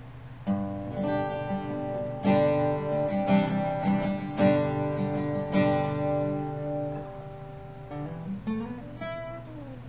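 Acoustic guitar strummed, its chords ringing out from about half a second in, thinning to a few single notes near the end.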